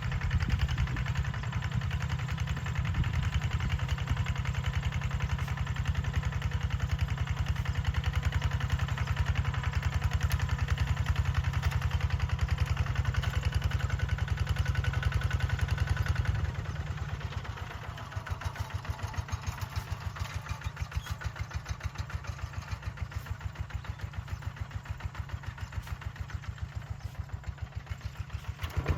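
A small engine running steadily with a rapid pulsing beat, dropping in level about two-thirds of the way through.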